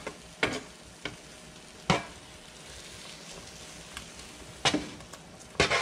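A metal spatula scrapes and knocks against a baking sheet as roasted vegetables are pushed off it into a pot of broth. There are about six sharp, irregular scrapes, with a quieter stretch in the middle.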